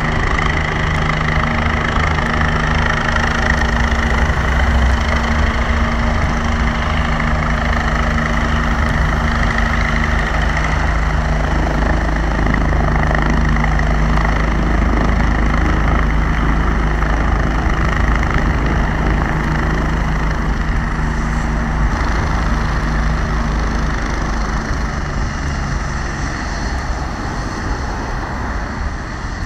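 Bell 429 twin-turbine helicopter hovering low and descending to land: the steady beat of its four-blade main rotor, turning at about 395 RPM, over a high turbine whine. It grows slightly quieter near the end.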